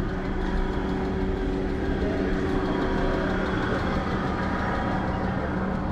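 A steady low mechanical hum with a constant tone, over the general noise of a busy pedestrian street with faint voices of passers-by.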